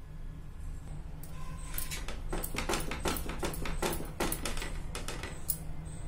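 Paneer being grated on a flat stainless-steel hand grater: short, even scraping strokes, about four a second, starting about two seconds in.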